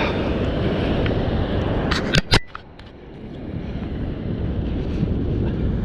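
Wind buffeting the microphone, a steady low rumble with surf behind it. Two sharp clicks come a little over two seconds in, after which the wind noise briefly drops away and builds back up.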